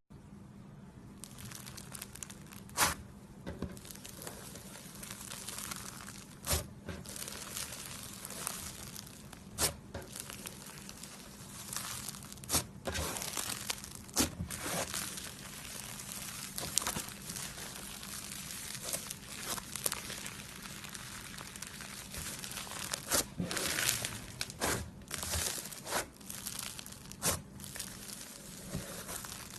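Slime being squished and stretched by hand, a continuous wet crackling and tearing with sharp pops every few seconds.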